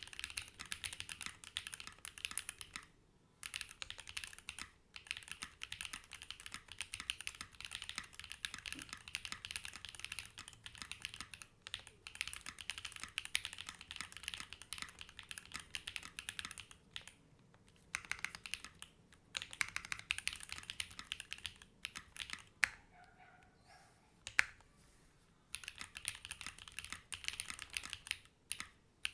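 Fast typing on a Techbear80 TB8 mechanical keyboard with Gateron Slay Type A switches and ePBT Origami keycaps: rapid key clacks with short pauses. A quieter stretch past the middle holds two sharper single key strikes, the loudest sounds.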